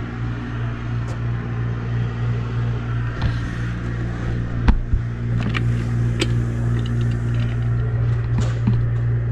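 A steady low hum, with a few sharp clicks and knocks around the middle.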